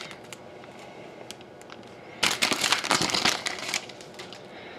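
A foil trading-card pack wrapper crinkling as it is opened and the cards are pulled out, a burst of about a second and a half midway, with a few faint clicks before it.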